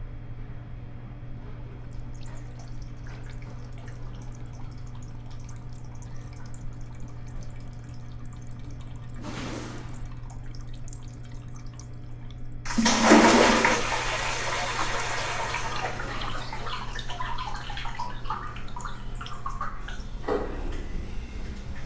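A toilet flushing in a public restroom: a sudden loud rush of water a little past halfway that slowly tapers off over several seconds. A steady low hum runs underneath, with a brief swish a few seconds before the flush.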